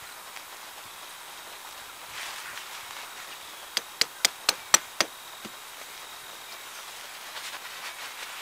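A quick run of six small, sharp clicks, about four a second, from the fittings at the corner of a rubberized poncho tarp being fastened down, over a faint steady insect whine.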